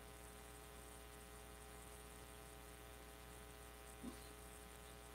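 Near silence: room tone with a steady electrical hum, and one faint short tap about four seconds in.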